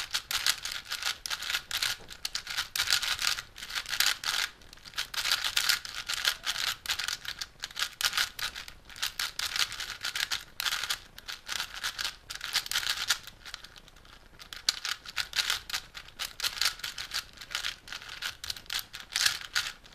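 A plastic 3x3 speed cube being turned fast: quick runs of clicking and clattering as the layers turn, with short pauses and a quieter stretch about two thirds of the way through.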